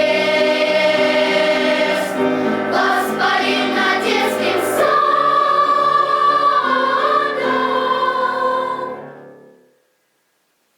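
Children's choir singing with piano accompaniment, ending on a long held note that fades out about nine seconds in, followed by silence.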